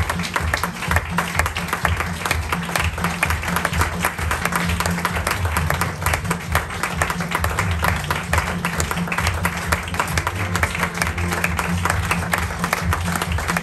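Audience applauding, a dense and steady clapping, with music that has a prominent bass line playing underneath.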